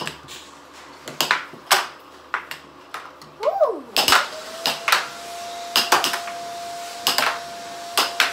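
Plastic air hockey strikers and puck clacking as they knock together and off the table's rails, in quick, irregular sharp hits.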